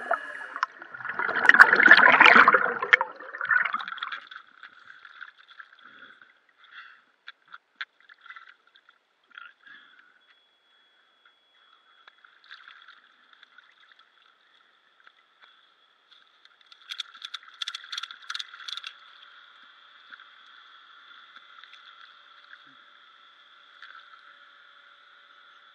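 Water bubbling and gurgling around a diver's camera, loud for the first few seconds, then faint muffled water sounds with scattered ticks and a short cluster of sharp splashing clicks a little past the middle.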